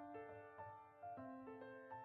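Soft background piano music: a slow, gentle ballad with one sustained note following another.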